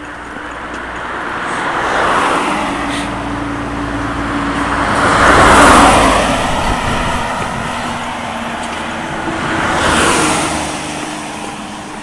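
Road vehicles pass close by one after another, each swelling and fading: one about two seconds in, one near the middle and one about ten seconds in. The loudest, in the middle, is a large truck going right past, with engine hum and tyre noise.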